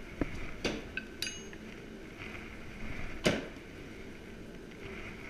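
Steel tomahawk heads clicking and clinking against each other as they are handled, with a ringing metal clink just after a second in. A little past three seconds, a loud thunk as a thrown tomahawk strikes the target.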